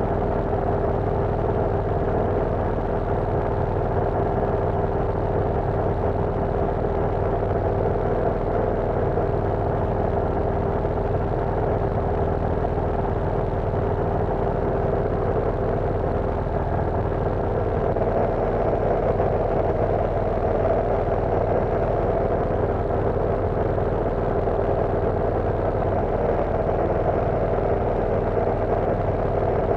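Cessna 172 floatplane's single piston engine and propeller droning steadily in cruise flight, heard from inside the cabin, with a constant pitch and no change in power.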